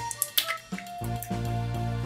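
Background music: sustained notes over a steady bass, with a couple of sharp clicks in the first half-second.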